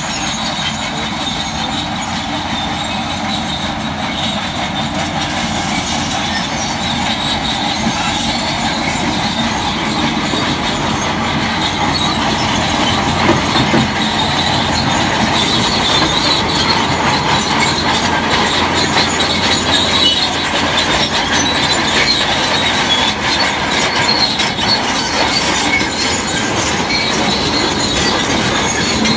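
Heavy earthmoving machinery working: a continuous metallic grinding and squealing over engine noise, growing a little louder about ten seconds in.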